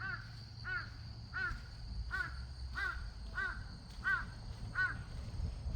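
A crow cawing over and over, about eight calls evenly spaced at roughly a call and a half per second, stopping about five seconds in. A steady high hum runs underneath.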